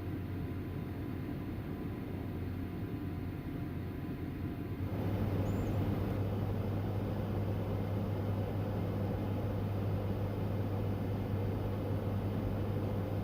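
Steady low hum of a car with road noise, which grows louder and fuller about five seconds in.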